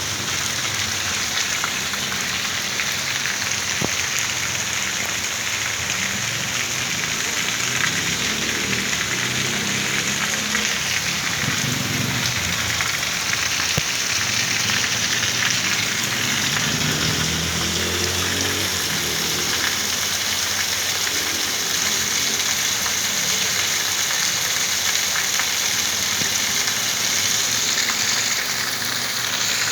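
Heavy rain falling steadily, with water pouring from a spout, as an even loud hiss. A low rumble swells briefly twice, about twelve and eighteen seconds in.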